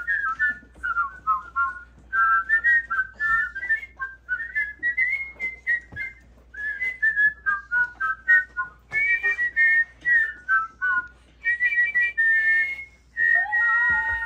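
Two people whistling a Christmas tune together, a melody of short clear notes stepping up and down. Toward the end the two whistles split into two parallel parts.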